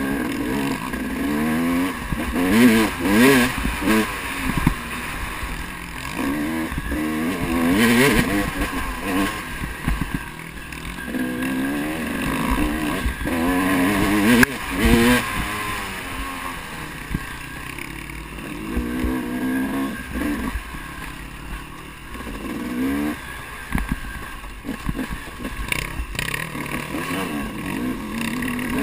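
KTM enduro motorcycle engine heard from on board, revving up and falling back again and again as the rider works the throttle over a rough dirt trail.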